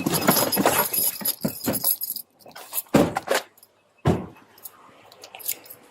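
Metal keys and gear jangling and rattling for about two seconds, picked up up close by a body-worn camera. Two heavy thumps follow, a second apart, then a few light clicks.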